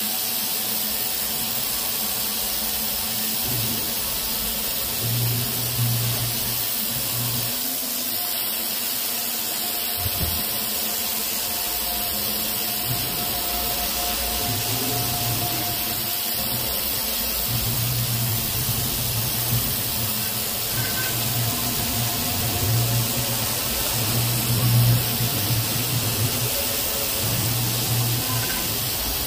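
CNC machining centre rough-milling steel with an 80 mm bullnose insert cutter at a 2.8 mm depth of cut, cooled by a dry air blast: a steady hiss, with a low hum that swells and fades over and over as the cutter works.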